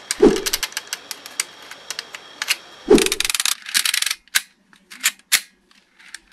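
Plastic gears of a mechanism turned by hand, giving rapid runs of sharp clicking as the teeth rattle over one another. A dull handling knock comes near the start and again about three seconds in.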